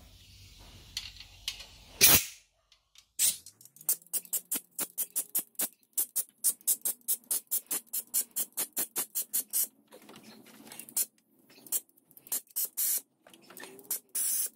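Compressed-air blow gun firing in short, rapid puffs, about three or four a second, with a single hard blast early on and a few longer blasts near the end, blowing out the engine block's head bolt holes.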